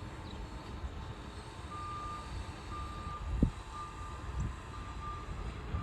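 Heavy work machine's backup alarm beeping about once a second, starting a couple of seconds in, over a steady low engine rumble. One short thump about halfway through.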